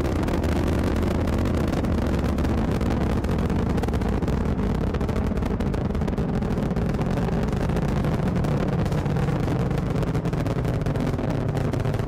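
Rocket launch: engines giving a steady, deep rumble with dense crackling over it.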